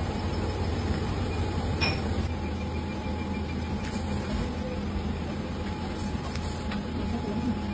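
Steady low mechanical hum with a thin steady tone above it, broken by a few faint light clicks.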